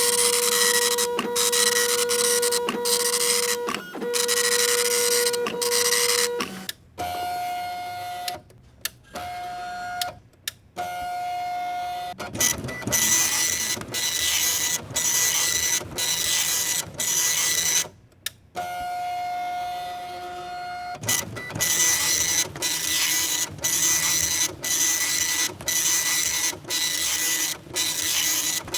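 A printer printing: the print head runs in quick repeated passes, each broken by a short gap, over a steady motor whine that changes pitch between stretches, with a few brief pauses partway through.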